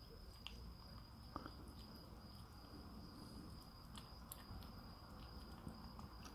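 Siamese kitten eating canned wet food from a plastic dish: faint, scattered small clicks of chewing and licking.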